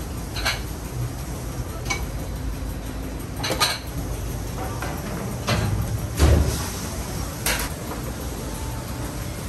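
Dishes and utensils clinking and knocking in a restaurant kitchen, about six separate strikes, the loudest a little after six seconds with a low thud, over a steady low hum.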